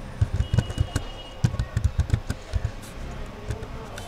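Typing on a computer keyboard at an irregular pace: a run of key clicks with soft low thumps, a few strokes a second.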